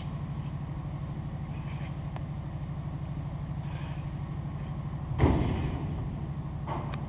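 Ferry's engines running with a steady low, pulsing hum. A single loud thump about five seconds in, followed by a couple of small knocks near the end.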